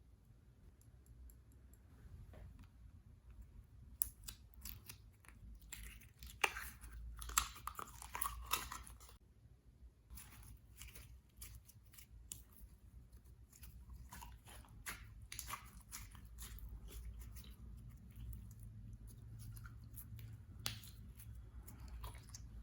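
Slime being worked by hand, making crackling, crunching clicks in clusters: a dense run from about four to nine seconds in, another around fifteen seconds, and a single sharp click near the end.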